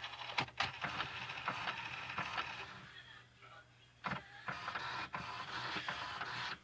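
HP Envy 7640 inkjet all-in-one printer's mechanism whirring, with clicks and knocks. It falls quiet about three seconds in and starts again about a second later.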